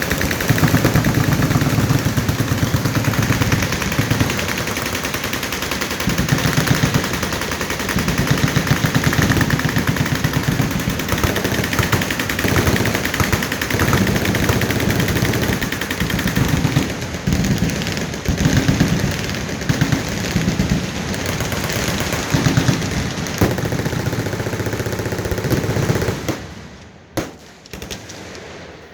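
Many machine guns firing at once along a firing line, a dense, continuous rattle of overlapping bursts. Near the end the firing thins to a few scattered shots and drops away.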